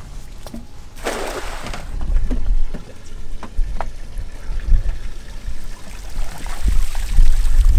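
A thrown cast net hits the water with a short splash about a second in. Near the end the net is hauled up out of the water, which streams and drips from it, over a low rumble that swells toward the end.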